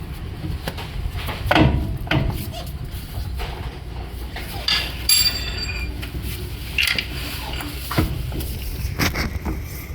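Scattered metal clanks and knocks as the unbolted steering rack is shifted in its mounts under the vehicle. One knock about five seconds in rings briefly like struck metal.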